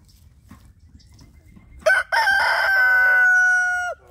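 Rooster crowing once, loud: a brief opening note, then a long held cry of about two seconds that bends down in pitch as it cuts off.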